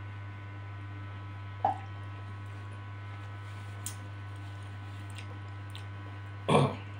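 Steady low electrical hum with a couple of faint mouth noises from the eater, then a short voiced exhale about half a second before the end.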